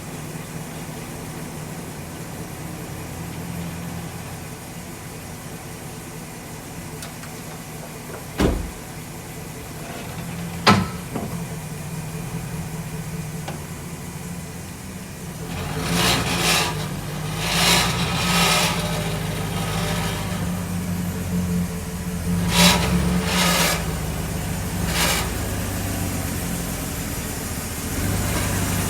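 A 2009 Chevrolet Silverado 1500 4WD running steadily, with two sharp knocks about two seconds apart near the one-third mark. From about halfway, harsh grinding bursts come and go half a dozen times: a grinding noise whose cause the owner has not found.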